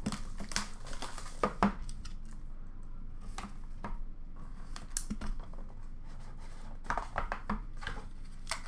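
Hands sorting through cardboard card boxes in a plastic bin: scattered, irregular clicks, taps and scrapes of cardboard against cardboard and plastic, bunched in a few short flurries.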